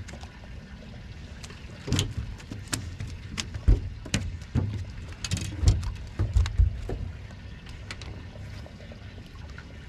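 Irregular knocks, taps and clicks from rods, gear and feet on a small fishing boat, some with a dull low thump, over a steady low rumble.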